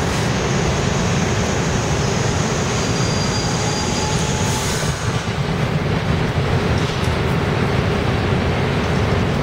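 An R62A New York City subway train pulls into an underground station and brakes to a stop, wheels and brakes rumbling and squealing faintly. A short hiss comes about halfway through, and then the standing train's low steady rumble carries on.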